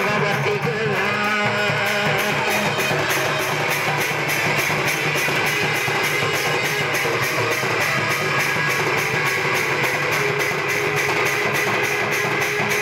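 Live Odia folk dance music: a two-headed barrel drum (dhol) played in a fast, even beat, under held melody notes.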